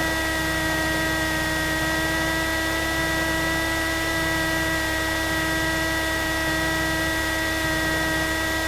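Cessna 172S cockpit noise picked up through the headset intercom while the engine idles on the ramp: a steady hiss with a steady multi-tone whine and low rumble, unchanging throughout.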